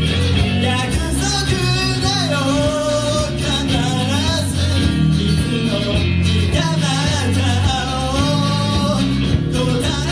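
Live rock band playing: a singer carries the melody over guitars and a steady low rhythm section, at full volume throughout.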